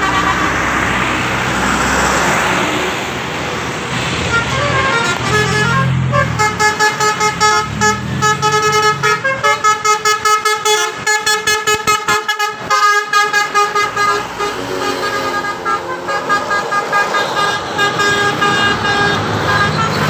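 Intercity bus's 'telolet' musical air horn playing a tune: first a fast run of short, clipped notes at several pitches, then longer held notes, over the engine and tyre noise of the bus passing close by.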